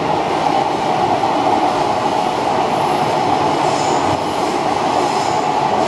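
Metro-Cammell electric multiple unit of the MTR Disneyland Resort Line heard from inside the car, running steadily through a tunnel with a loud, even rumble of wheels and running gear. A faint high squeal from the wheels comes in around the middle.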